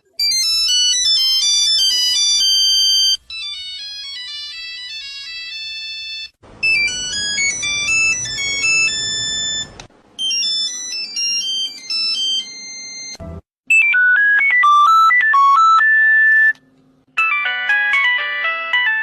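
A run of Nokia mobile phone ringtones played one after another, about six short electronic melodies of a few seconds each, cut off and replaced in turn. The first are thin, high beeping tunes; the last two are lower and fuller, polyphonic-style ringtones.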